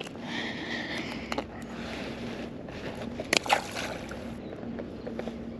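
A porgy being worked off a jig by hand on a kayak, with small handling clicks, then the fish dropped back into calm water with a short splash about three and a half seconds in. A faint steady hum runs underneath.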